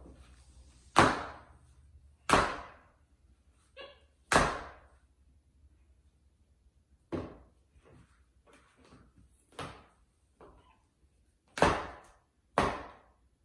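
A high-heeled shoe knocking and clacking against a polished marble floor as a monkey drops and bangs it about: about seven sharp knocks at irregular intervals, each with a short echo in the hard-floored room, the loudest near the start and two close together near the end.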